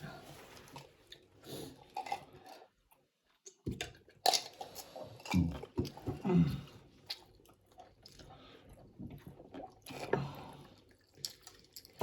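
Noodles being chewed and slurped close to the microphone, with a sharp click about four seconds in.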